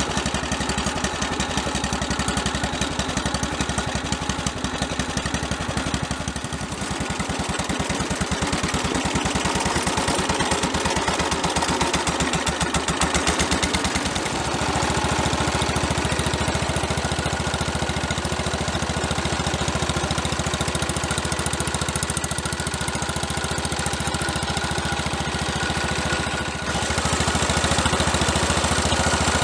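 Cub Cadet 122 garden tractor's 12 hp single-cylinder engine running with a steady, rapid beat. Its sound shifts about halfway through, and near the end it dips briefly, then comes back a little louder.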